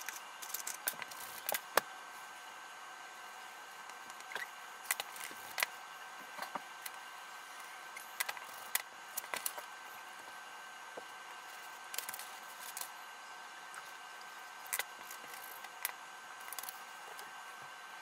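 Irregular light clicks and taps of a plastic ruler and pencils being shifted and set down on paper, over a steady faint hiss.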